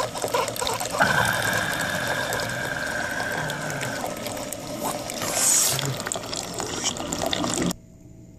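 Single-serve pod coffee machine brewing: a steady machine whine and hot coffee streaming and splashing into a mug. The sound cuts off abruptly near the end.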